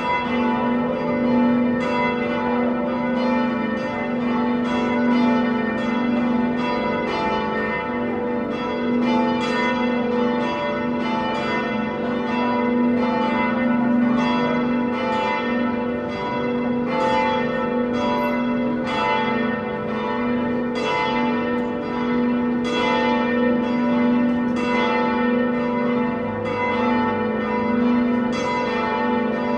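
Church bells ringing a continuous peal, with strokes coming about twice a second and their tones ringing on and overlapping.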